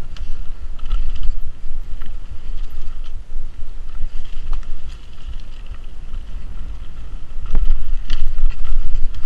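Mountain bike ridden fast down a dirt forest singletrack: wind buffets the body-worn microphone in a loud, gusting rumble over the noise and rattle of the bike. A couple of sharp knocks come near the end, where it gets louder.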